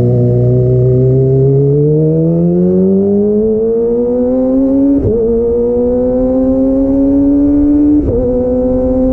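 Kawasaki ZX-25R's 249 cc inline-four engine through a DX Generation Pro Race exhaust with the dB-killer removed, accelerating with a steadily rising pitch. Upshifts about five seconds in and again near the end, each with a brief break and a small drop in pitch before it pulls on.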